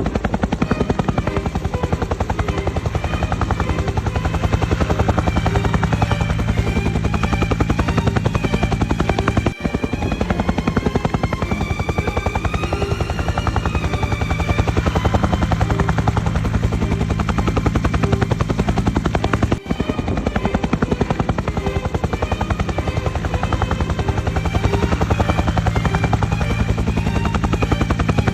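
Helicopter rotor blades chopping rapidly and evenly over a steady turbine drone, with a brief dip about every ten seconds where the sound loops.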